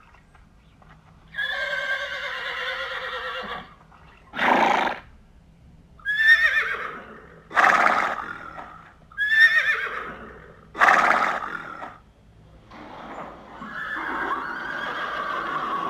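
Horse whinnying and neighing: one held call, then a run of about five short whinnies roughly a second and a half apart, then a longer call near the end.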